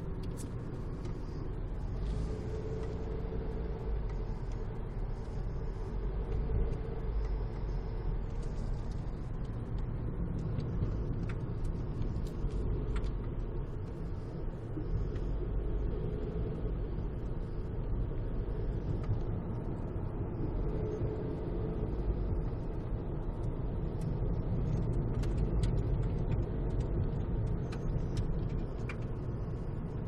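Road noise inside a moving car: a steady low rumble of tyres and engine at cruising speed.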